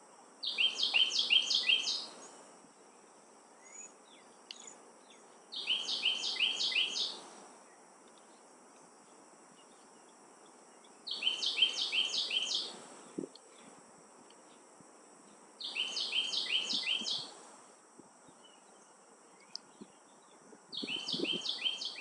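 A Carolina wren singing five times, about every five seconds: each song is a quick run of four or five repeated ringing phrases lasting about a second and a half. A steady high buzz sits under it throughout.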